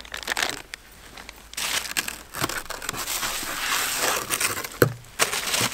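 Plastic bubble wrap crinkling and rustling against a cardboard box as a wrapped knife is lifted out, with a sharp knock about five seconds in.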